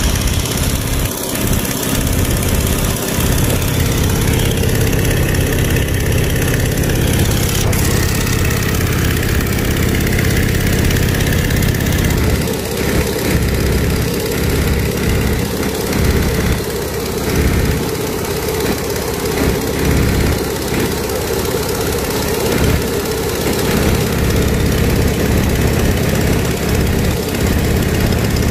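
Boeing Stearman biplane's radial engine and propeller running steadily in flight, heard from the open cockpit under loud wind rush.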